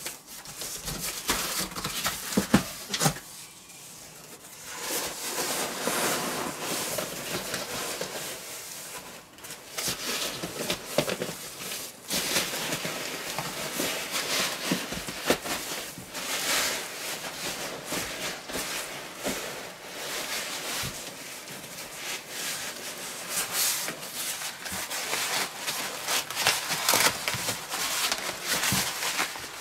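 Cardboard box and packing material rustling and scraping as a large parcel is unpacked by hand, with scattered small knocks and crackles.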